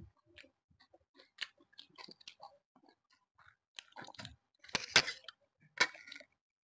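A person chewing and crunching food, with scattered small mouth clicks and a louder crunching bite about five seconds in.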